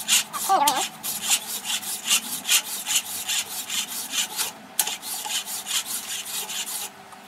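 Body file in a wooden backing block rasping across a cast aluminium workpiece held in a vice, in rapid repeated strokes. There is a brief pause about four and a half seconds in, and the filing stops just before the end.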